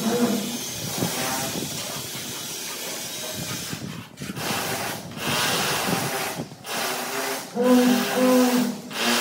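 Notched steel trowel scraping and combing cement tile adhesive across a concrete floor, stroke after stroke with short breaks between them. The strokes near the end are louder and carry a low pitched rasp.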